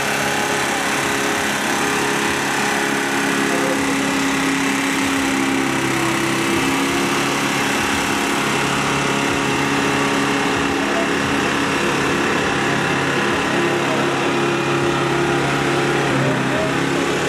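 Diesel tractor engines of a Kirloskar-engined Mahindra 575 and a Sonalika 60 running flat out under heavy load as they pull against each other, a steady, even engine drone.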